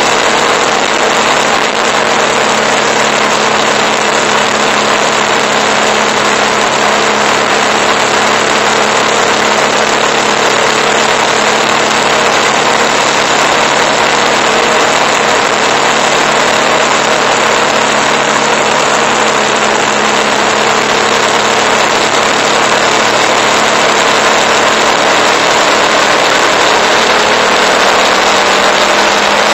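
Motorcycle engine running steadily at cruising speed, heard under loud wind and road noise on the bike-mounted camera.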